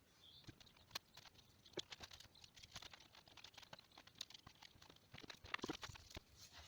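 Old gasket material being scraped and picked off a power steering pump body: faint, irregular small clicks and scratches, busier about five seconds in.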